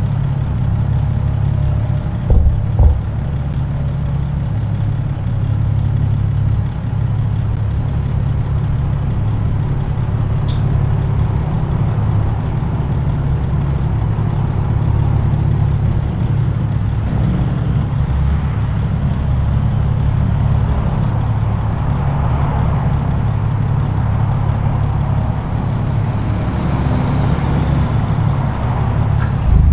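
Caterpillar C15 ACERT diesel of a Peterbilt 379 running steadily under way, a low, even drone with no change in revs, with a couple of brief thumps about two seconds in.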